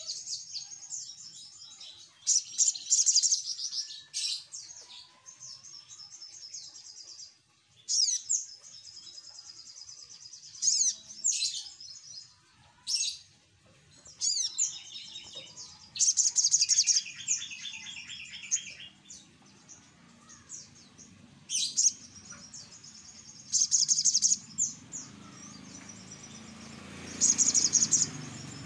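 Sogok ontong sunbird calling in loud bursts of rapid, high, sharp chirps and trills, repeated every few seconds with short pauses between.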